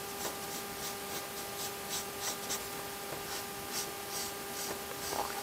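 Marker pen scratching across paper in short, irregular strokes while a curved pattern line is drawn.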